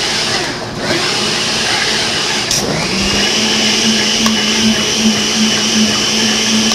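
Early-1960s blender with a stainless-steel jar running steadily, pureeing cantaloupe with vanilla ice cream into a thick soup. About three seconds in, its sound settles into a steady, even hum.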